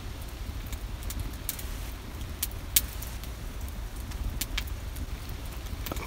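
Open wood fire crackling, with sharp pops every second or so over a low steady rumble.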